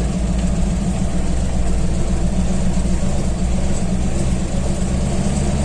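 Vehicle engine running steadily, a continuous low drone with no change in speed.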